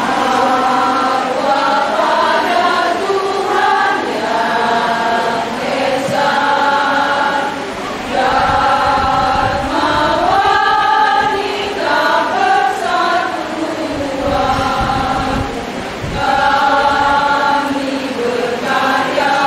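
Women's choir singing in harmony, held notes in phrases a second or two long with short breaks between them.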